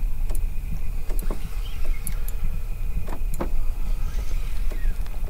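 Boat motor running steadily, a low rumble with a thin steady whine, while a fish is played from the boat; scattered clicks and knocks sound over it.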